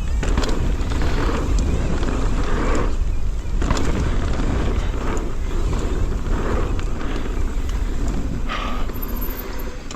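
Mountain bike descending a dirt trail at speed: wind buffeting the microphone over tyre roar, with frequent clicks and knocks from the bike rattling over roots and rough ground.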